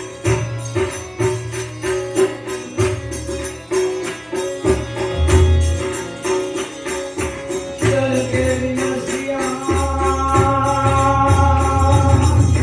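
Devotional bhajan music: a steady beat of jingling hand percussion over held instrumental tones, with a higher held chord coming in about eight seconds in.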